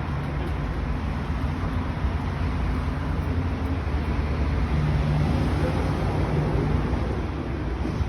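Steady low vehicle rumble with a low hum running under it.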